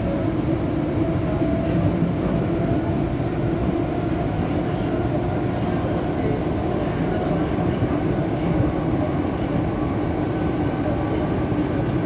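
EP2D electric multiple unit running steadily along the line: a continuous rumble of wheels on rail with a few steady humming tones over it.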